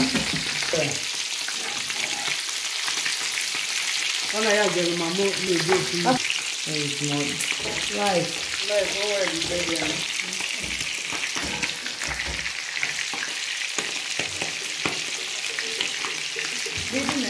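Fried rice sizzling in a frying pan on a gas stove, a steady hiss, with a metal spoon stirring it in the pan. A voice is heard for several seconds in the middle.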